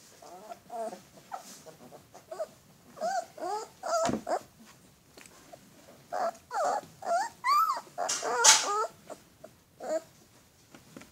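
Alaskan malamute puppies whining and yipping in short, high, wavering cries, mixed with a little growling as they play-fight. The cries come in bunches and are loudest about eight seconds in, with one sharp knock about four seconds in.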